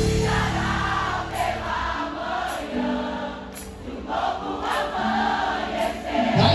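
A large concert crowd singing a gospel song together, sounding like a big choir, over soft sustained keyboard chords from the band. The full band with bass comes back in near the end.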